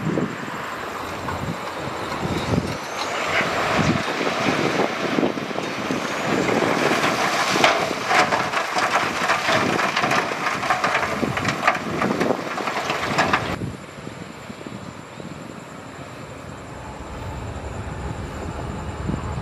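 Heavy diesel equipment at work: engine noise with dense rattling and clatter. It stops suddenly about two-thirds of the way through and is replaced by a quieter low engine rumble that builds near the end.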